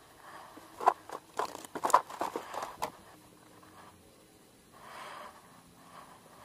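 Handling noise from unhooking a small just-caught mullet in a wooden boat: a cluster of sharp, irregular clicks and crackles lasting about two seconds, starting about a second in. A softer hiss follows about five seconds in.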